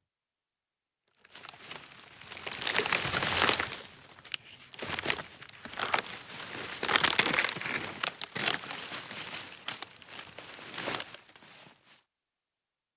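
Wooden sticks and branches snapping and cracking, with a dense run of crackling and sharp breaks, loudest about two to four seconds in and again around seven seconds, stopping about a second before the end.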